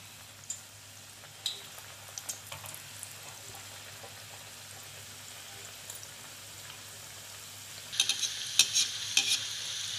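Gulab jamun balls deep-frying on a low flame in hot ghee: a steady soft sizzle with a few small pops. From about eight seconds in, a metal spoon clicks and scrapes against the metal kadhai several times, louder than the frying.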